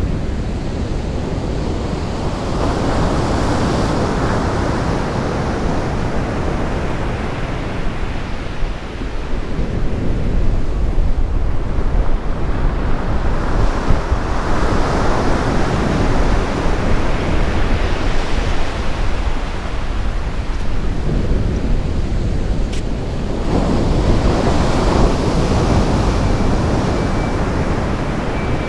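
Sea waves breaking on the shore, the surf swelling and easing every several seconds, with wind rumbling on the microphone.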